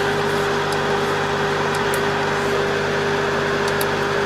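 Rice combine harvester running steadily, heard from inside its cab: an even engine drone with a steady whining tone on top. A few faint clicks sound over it.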